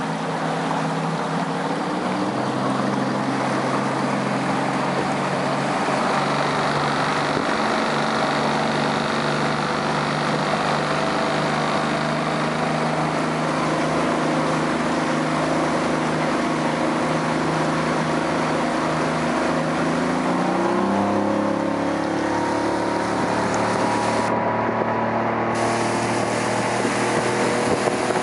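Boat's outboard motor running under way, with rushing water and wind noise; the engine speeds up a little about two seconds in and again about twenty seconds in.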